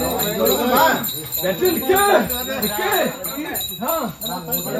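Small bells jingling continuously, with other sounds that glide in pitch mixed in.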